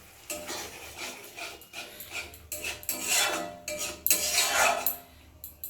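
A cooking spoon scraping and stirring through masala in a metal pan, in a run of short strokes that are loudest about three and four seconds in.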